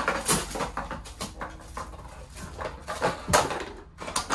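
Empty bottles clattering and knocking as a border collie picks them up and drops them into a container, a rapid string of short knocks, with a brief dog whine a little past a second in.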